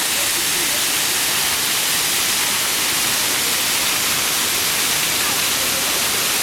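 Waterfall rushing: a steady, even hiss, strongest in the high range.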